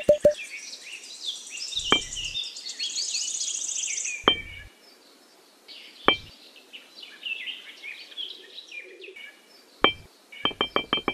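Birds chirping and trilling, with a few sharp clinks a couple of seconds apart as miniature clay bricks are set down, then a quick run of clicks near the end.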